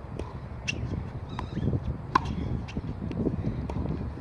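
Tennis ball struck by a racket with a single sharp pop about two seconds in, with a few fainter ball knocks before it, over a steady low rumble.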